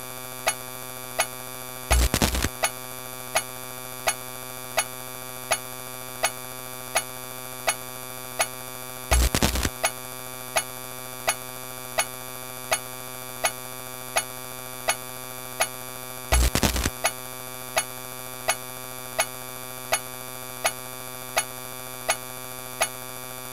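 A dense, steady electronic drone of many stacked tones, overlaid with sharp regular clicks about every 0.7 seconds. Three louder bursts, each with a deep thump, come about seven seconds apart. It is a layered, cacophonous collage of looped sound effects.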